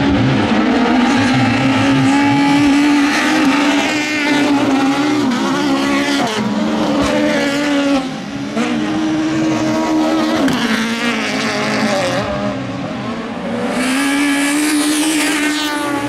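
Rallycross race car engines revving hard as the cars lap the track. The engine note drops several times and climbs again near the end.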